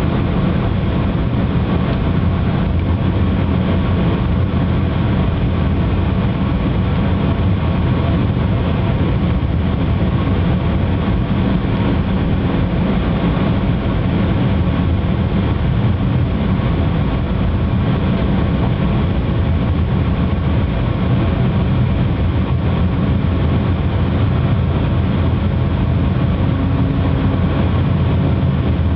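Metra commuter train rolling slowly down the track, with a steady low drone and rumble heard from aboard the train.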